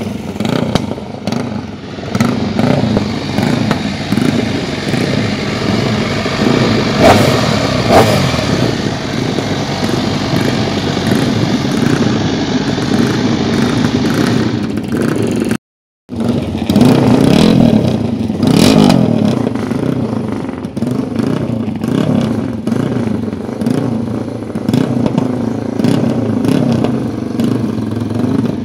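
Racing motorcycle engines running and revving up and down, with a rough, crackling exhaust note. The sound drops out completely for a moment about halfway through, then picks up again.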